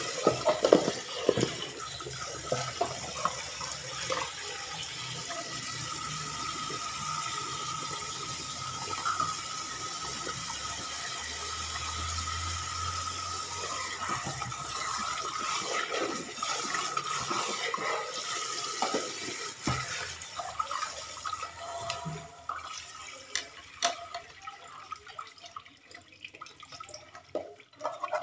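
Kitchen tap running into a sink during dishwashing, with plastic bowls, plates and a pot clinking and knocking now and then. The running water stops about five seconds before the end, leaving only scattered clatter and drips.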